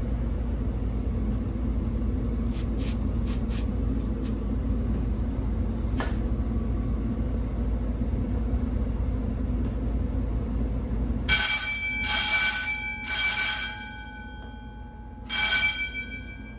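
Steady low rumble of an HVAC air-handling unit moving air through the ductwork, with a few faint clicks. About eleven seconds in it cuts off suddenly, and four short high-pitched ringing tones follow.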